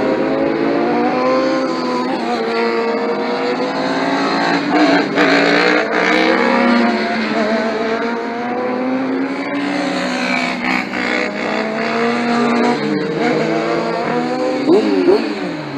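Several sports motorcycles at high revs on track, their engines overlapping, with pitch rising and falling as they accelerate, shift gear and pass.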